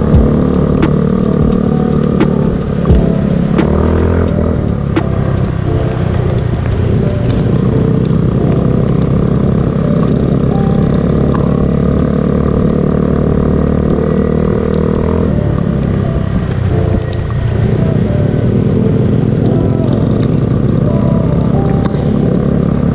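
Small scooter-type motorbike's engine running under way, its pitch shifting with speed, with a couple of sharp knocks in the first three seconds.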